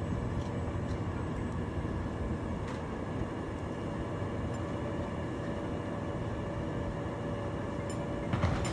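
A steady low machine rumble. A faint held tone sounds for a few seconds in the middle, and a short knock comes near the end.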